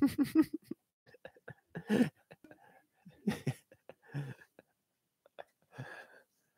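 Short, scattered bursts of a man's voice and breath close to a headset microphone, with small clicks and knocks between them as a camera on a tripod is handled.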